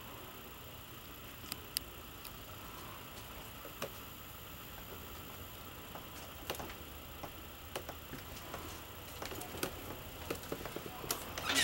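Quiet room tone with a faint steady hiss and scattered light clicks and ticks, coming more often near the end. A loud, wavering, whining call starts right at the very end.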